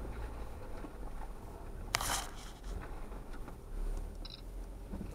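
Low, steady rumble of off-road vehicles crawling slowly along a wet, muddy trail, with a short sharp burst of noise about two seconds in and a brief high squeak a little after four seconds.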